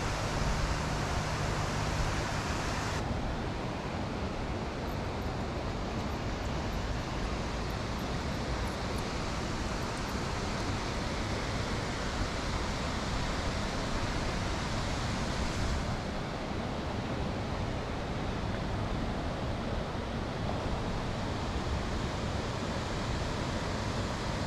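Steady rush of river water pouring over a weir and through fast shallows.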